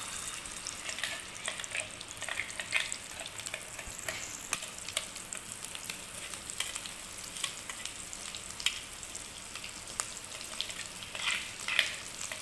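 Ground masala paste frying in hot mustard oil in a kadai: a steady sizzle scattered with many small pops and crackles.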